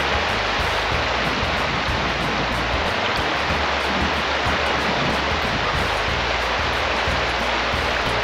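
Background music with low sustained notes, over a steady rushing noise that comes in abruptly just before and holds throughout.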